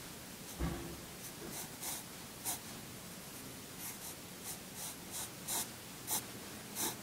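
Wooden pencil sketching on paper: about a dozen short, separate scratchy strokes at an uneven pace, with a light knock about half a second in.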